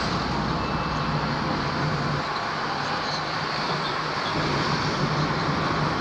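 Steady road noise from inside a moving car: tyres on the road and the engine running, with passing traffic around it.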